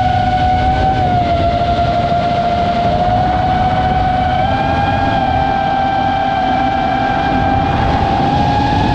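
Electric motor and propeller of a radio-controlled Flightline Spitfire model in flight: a steady whine that wavers slightly in pitch, over heavy wind rumble on the microphone.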